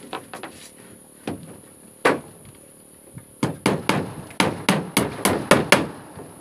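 Hammer nailing wooden floorboards: a few scattered blows, then a quick run of about nine strikes, roughly four a second, in the second half.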